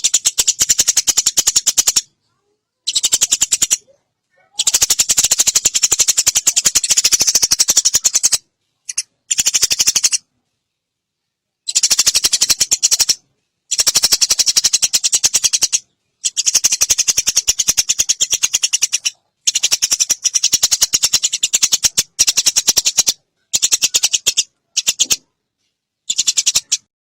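Eurasian tree sparrow giving long, rapid, high-pitched chattering rattles in repeated bouts of one to three seconds, separated by short silent gaps.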